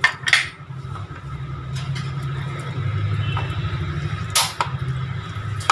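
A spoon stirring a thick flour-and-water batter in a bowl, with a few sharp clicks against the bowl over a steady low hum.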